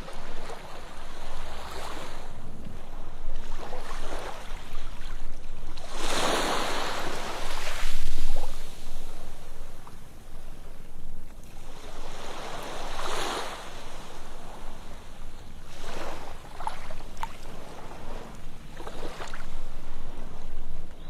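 Ocean waves breaking and washing up a sandy beach in repeated swells of surf. The largest wave breaks about six seconds in, and another strong one about thirteen seconds in.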